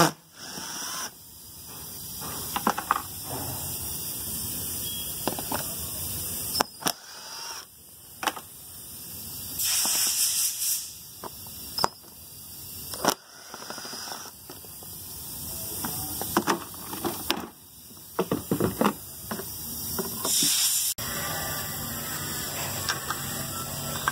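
Socket ratchet clicking in short, irregular runs as the bolts of a car's underbody cover panel are undone, with scattered clanks of metal tools.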